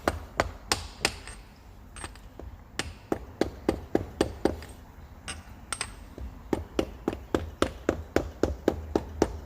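A nylon-headed hammer tapping a long 32 mm socket to drive a new camshaft oil seal into a 1.9 TDI PD cylinder head: light, quick taps at about three a second, in runs broken by two short pauses.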